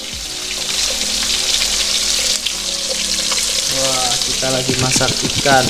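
A whole fish frying with spice paste in a wok: a steady sizzle.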